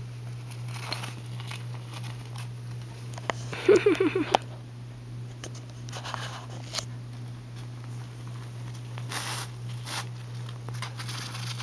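Light rustling and crinkling of a plastic floor sheet as dwarf hamsters move on it and a hand reaches in, over a steady low hum. A brief, louder sound comes about four seconds in.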